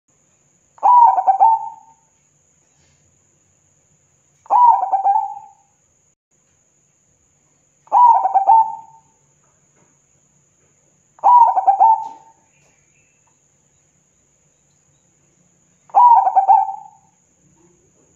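Zebra dove singing: five cooing phrases, each about a second long, repeated every three to four seconds.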